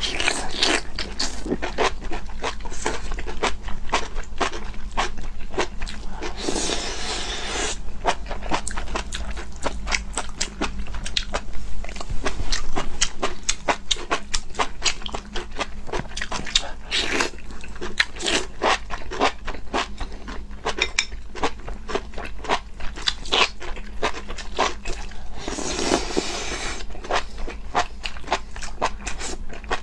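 Two people slurping and chewing enoki mushrooms from a spicy chili-oil broth: dense wet smacking and crunching throughout, with a longer slurp about a quarter of the way in and another near the end.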